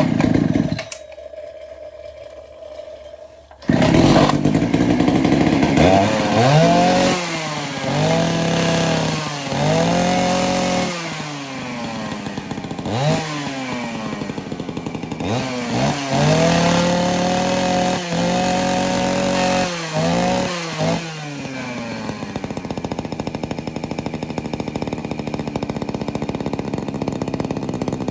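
Vintage Poulan two-stroke chainsaw starting about four seconds in, then revved up and down several times before settling to a steady idle. The saw's clutch is suspected of loose shoes that don't grip under load.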